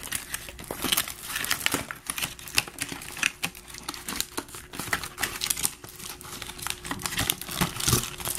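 Plastic and cardboard toy packaging crinkling and rustling as it is handled and pulled apart, with irregular crackles and clicks.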